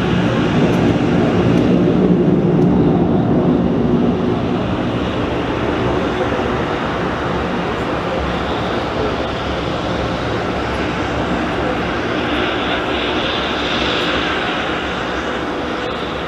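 Jet airliner's engines: a loud, broad rushing noise, at its loudest for the first few seconds and then easing off a little as the aircraft passes.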